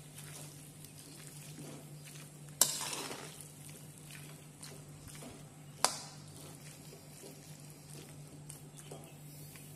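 A metal spatula stirring and turning beef in thick masala in a wok, over a faint frying sizzle. Twice, about three seconds apart, the spatula clanks sharply against the side of the pan.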